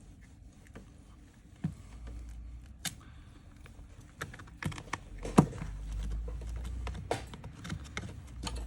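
Irregular small clicks and taps of hand repair tools against an iPhone XR's frame and screen as it is worked open, with a low rumble of handling in between; the sharpest click comes about five and a half seconds in.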